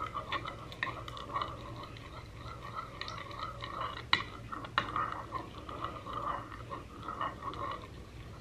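Metal spoon stirring a glue, water and blue food colouring mixture in a bowl: scraping and clinking against the bowl, with a couple of sharper clinks about halfway through.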